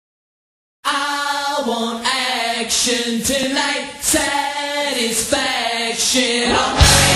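A song opening with voices singing in harmony without instruments, starting after a brief silence. Near the end, loud heavy rock music comes in.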